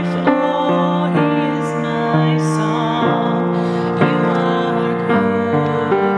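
A woman singing a worship song, accompanying herself on a grand piano.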